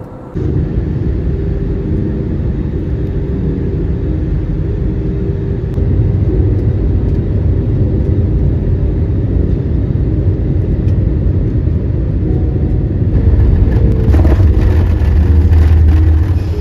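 Jet airliner cabin noise: a steady engine rumble and whir, with some faint steady tones above it, growing louder in the last few seconds.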